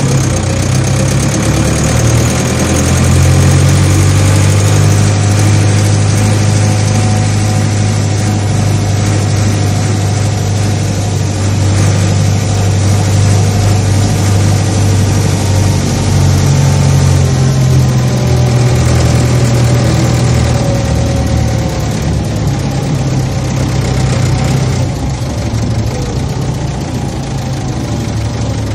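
A large machine engine running steadily at a constant speed, a low drone with no breaks, its pitch stepping up slightly a little past halfway.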